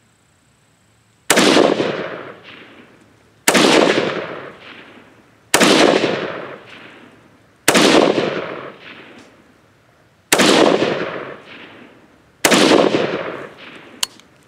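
Six single rifle shots from a Zastava ZPAP M90PS, a 5.56 AK-pattern rifle fitted with a Strike Industries Dynacomp compensator, fired slowly about two seconds apart while re-zeroing. Each shot is a sharp crack followed by a long echo that dies away.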